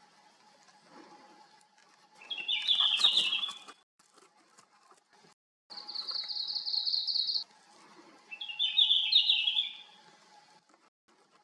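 Male red-flanked bluetail singing: two short, bright warbling phrases several seconds apart. Between them a rapid, even high trill from another bird sounds for about two seconds.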